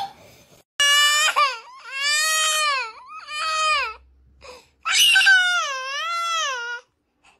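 Small children crying: about four long, wavering wails with short breaks between them, the last and longest near the end.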